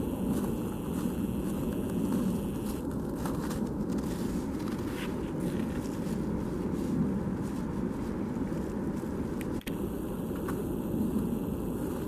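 Steady low outdoor background noise with no distinct calls or events.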